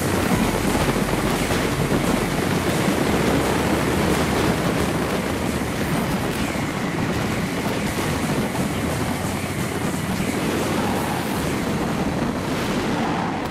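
Fireworks finale: many shells bursting at once, merging into a continuous dense rumble with crackling on top, easing slightly near the end.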